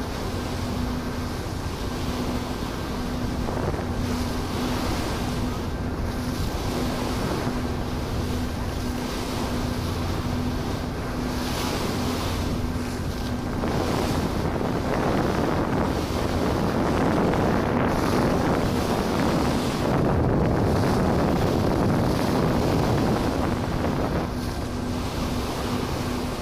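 Harbour ferry under way: a steady low engine hum under the rush of water and wind buffeting the microphone. The rushing noise swells louder about halfway through, then eases near the end.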